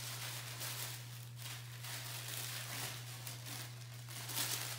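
Tissue paper rustling and crinkling as a parcel is unwrapped by hand, with a few sharper crinkles, the loudest near the end.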